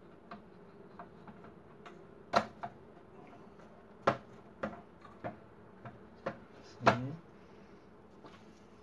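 Plastic body of a 1025 colour laser toner cartridge clicking and knocking as it is handled and pressed together: about half a dozen sharp clicks at irregular intervals with smaller ticks between.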